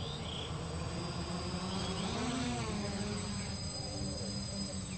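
Team-built quadcopter's four motors and propellers buzzing steadily while it sits on the ground, the pitch rising briefly about two seconds in.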